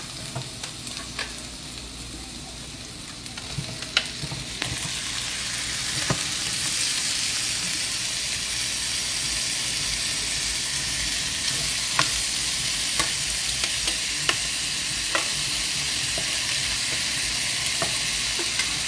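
Raw shrimp frying in butter with garlic and herbs in a nonstick frying pan. A soft sizzle turns into a louder, steady hiss about five seconds in as the shrimp go into the pan. A few sharp knocks sound against the pan as it is stirred with a wooden spoon.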